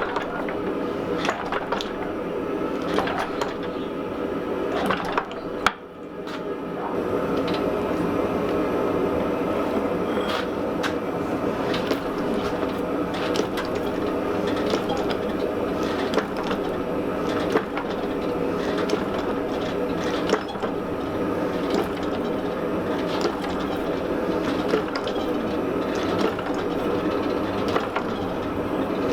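Gas forge burner roaring steadily, with scattered sharp metallic clinks and a brief drop in the roar about six seconds in.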